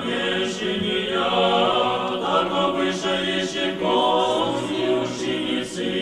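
Orthodox church choir singing a cappella, a sustained chant of several voices in Church Slavonic.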